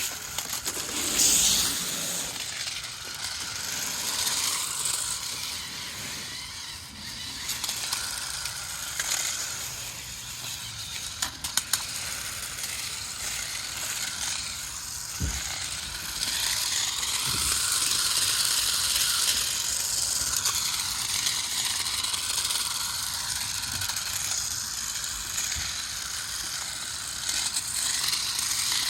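Toy RC stunt car running, its small geared electric motors and mecanum wheels making a steady mechanical whirring and rattling that rises and falls as it moves.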